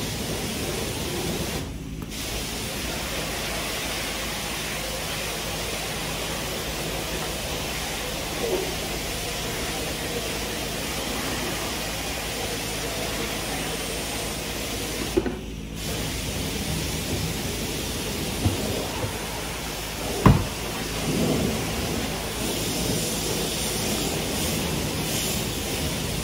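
Steady hiss of outdoor background noise, briefly cut out twice, with one sharp click about twenty seconds in.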